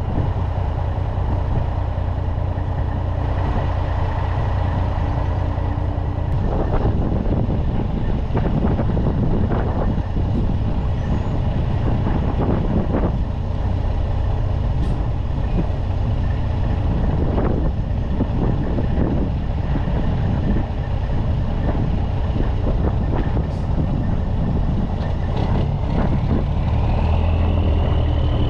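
Heavy-duty tow truck's diesel engine running steadily, with several short hisses of air now and then.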